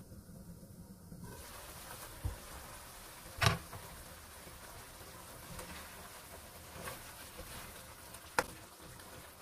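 Chicken afritada simmering in tomato sauce in a nonstick pan: a sizzling hiss opens up about a second in as the glass lid comes off, with a loud clack a couple of seconds later. Near the end a ladle stirs the pan, knocking against it.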